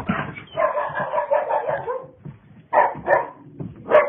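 A dog giving one long drawn-out howl for about two seconds, then short, loud barks.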